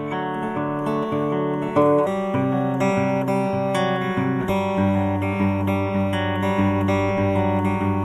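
Background music: an acoustic guitar strumming chords.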